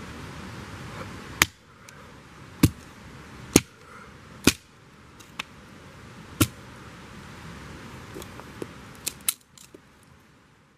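A series of sharp knocks or clicks: five loud ones roughly a second apart, then several fainter ones near the end.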